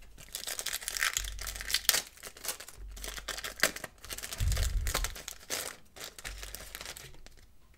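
Plastic trading-card pack wrapper crinkling and tearing as it is ripped open by hand, in a run of quick crackles. There is a low bump about four and a half seconds in.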